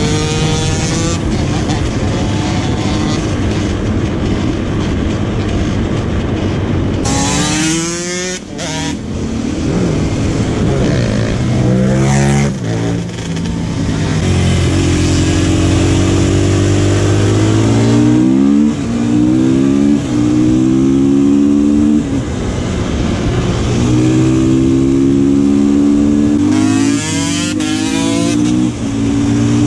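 Supermoto motorcycle engine pulling through the gears, its pitch climbing and then dropping back at each upshift, over steady wind rush. About a third of the way in and again near the end, another bike revs hard close by with a steep rising pitch.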